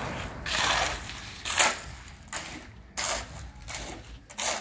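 A shovel scraping and scooping through wet concrete in short, irregular strokes, about one a second.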